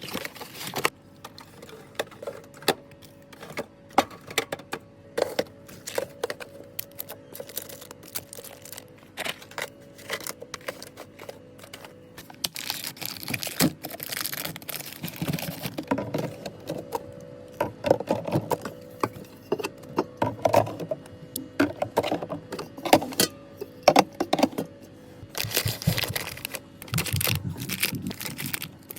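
Drinks and snack packages being handled and set into a mini fridge: irregular clinks, knocks and rustles, busier in the second half.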